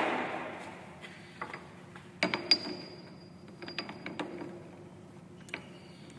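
Scattered metallic clinks and knocks, some ringing briefly, as metal parts and tools are handled at a lathe. The loudest cluster comes a little past two seconds in, over a faint steady hum.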